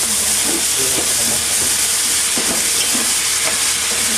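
Meat and minced vegetables sizzling as they fry in a pan: a steady hiss.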